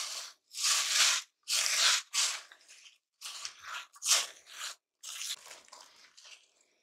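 Wooden spoon stirring dry Rice Krispies and salted peanuts into a thick melted chocolate, peanut butter and corn syrup mixture in a saucepan: crisp crunching and rustling with each stroke, one to two strokes a second, getting quieter over the last couple of seconds.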